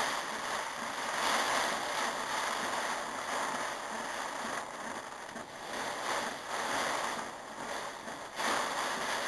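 Heavy storm rain pouring down in a dense, steady rush that rises and falls a little in strength.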